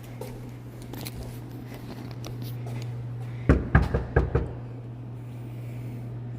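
Four quick knocks on a door, about three and a half seconds in, over a steady low hum.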